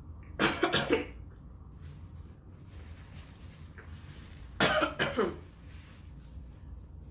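A person coughing in two short fits about four seconds apart, each a few quick coughs, brought on by spicy barbecue sauce while eating.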